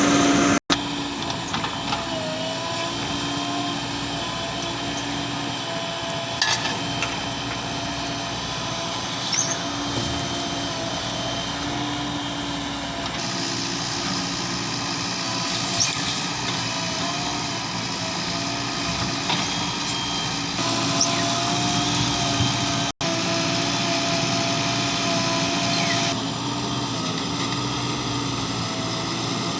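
Diesel engine of a JCB 3DX Plus backhoe loader running steadily under load, its pitch rising and dipping a little as the hydraulics work, with a few short clanks from the machine or its load.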